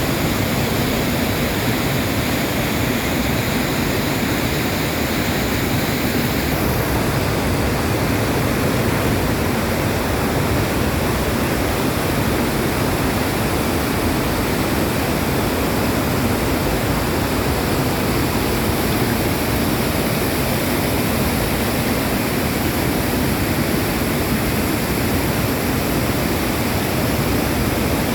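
Waterfall of about 100 feet pouring into a pool: a loud, steady rush of falling water.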